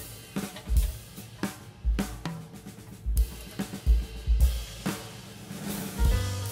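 Background music led by a drum kit: bass drum hits with snare and cymbals over pitched instruments.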